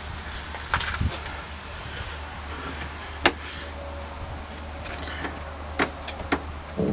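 A few light clicks and knocks from a hand handling metal trim in a travel trailer; the sharpest comes about three seconds in. A steady low hum runs underneath.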